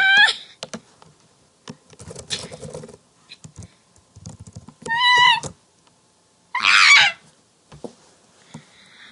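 A person's short, high-pitched squealing cries and a sharp, breathy gasp about two-thirds of the way through, with scattered knocks and rustles in between.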